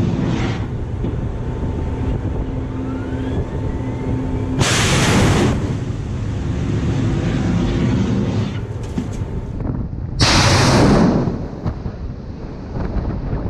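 Two roughly one-second rushing blasts about five and a half seconds apart, the rocket-booster exhaust of Harpoon anti-ship missiles leaving the Mk 141 launcher canisters, over a steady low rumble with wind on the microphone. A faint steady tone and a rising whine come before the first blast.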